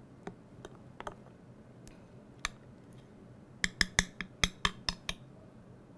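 Spoon stirring melted chocolate frosting in a glass measuring cup: a few scattered light taps, then a quick run of clinks against the glass from about three and a half to five seconds in.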